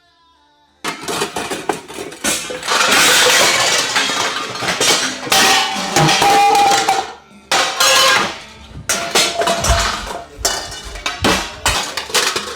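Loud kitchen clatter of pots, pans and dishes being banged and knocked about, starting suddenly about a second in after a brief hush. It continues as a dense string of sharp knocks and clinks, with a ringing metallic tone partway through.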